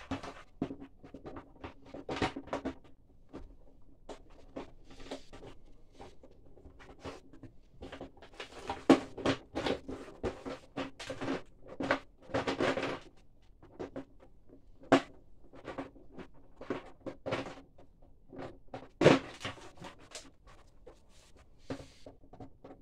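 Hard-plastic HomePet pet carrier shells being handled and pushed together: irregular clicks, knocks and scrapes of plastic on plastic, with a few louder knocks and a longer scraping stretch partway through.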